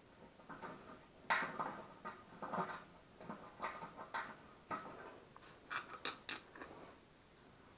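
Faint, scattered clicks and scrapes of a metal mounting bracket being handled and lined up against a furnace blower motor and its sheet-metal housing.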